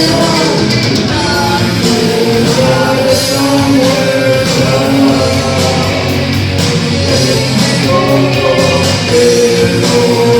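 A rock band playing loudly and continuously, with a singing voice over guitar, bass and drums.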